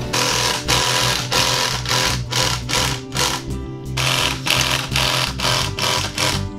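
Cordless drills whirring in short repeated bursts as they drive screws up through pine ceiling boards, over background music.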